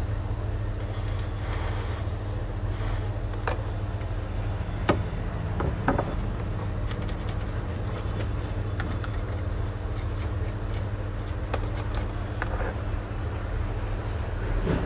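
A steady low hum with a faint steady tone above it, running throughout. Scattered light clicks and short scrapes from hand tools working on a TV circuit board sit on top.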